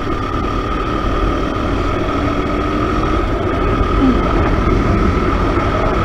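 KTM RC 200's single-cylinder engine running on the move as the bike gains speed, with wind rushing over the microphone and a steady high whine.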